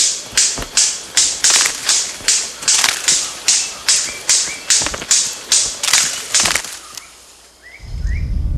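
A displaying male bird of paradise giving a rapid run of sharp, snapping calls, about three a second, which stop about seven seconds in, followed by two short rising chirps. Background music comes in near the end.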